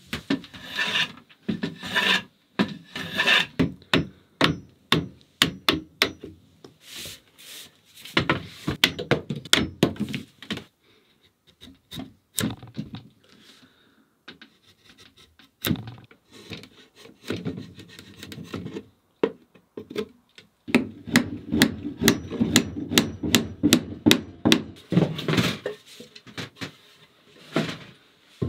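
Hammer blows on wooden boards, many separate strikes, with several stretches of rasping, scraping wood noise in between as boards are worked and fitted.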